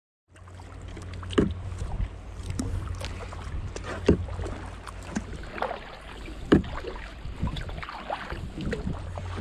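Kayak paddling: a double-bladed paddle dipping and pulling through the water, with a sharp splash or knock about every two and a half seconds and smaller splashes and drips between, over a steady low rumble.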